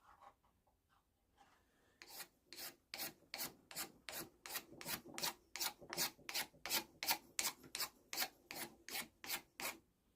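A blade scraping the wooden handle of a tack hammer in quick short strokes, about three a second, to take off old grime. The strokes start about two seconds in and stop near the end.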